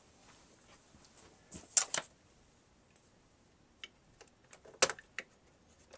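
Sharp clicks and clacks of parts being handled and fitted while reassembling a DVD recorder: a quick cluster of loud clicks about two seconds in, and a few more around five seconds in.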